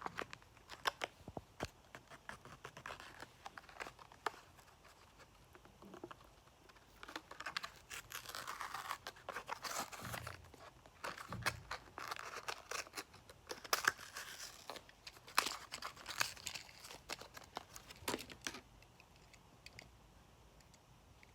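Packaging of a Hot Wheels toy car being torn and crinkled open by hand, with many sharp clicks and rustling bursts that die away near the end.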